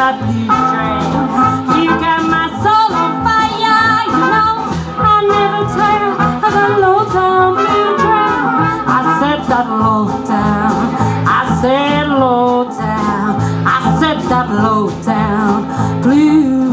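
A live swing jazz band playing, with a woman singing over horns, an upright bass and a strummed rhythm on a steady swing beat.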